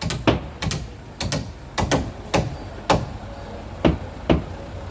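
A series of about ten sharp knocks at an uneven pace, some in quick pairs.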